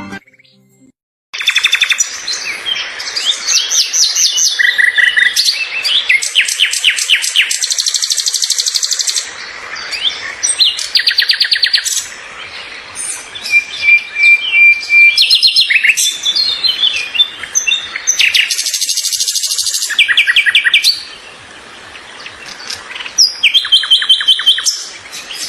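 Small songbirds chirping and singing together, starting about a second in: fast trills, rapidly repeated high chirps and a few held whistled notes overlapping, with brief quieter lulls between bouts.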